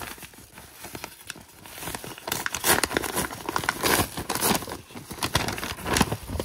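Brown kraft-paper envelope crinkling and rustling as hands handle it and pull it open. Faint at first, then a run of sharp paper crackles from about two seconds in.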